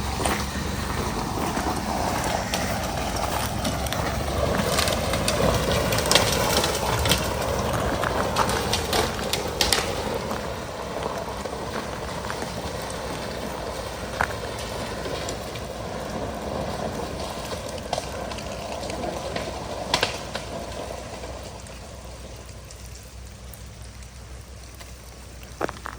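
Ice crust from freezing rain crunching steadily, with a few sharp cracks, the crunching fading over the last few seconds.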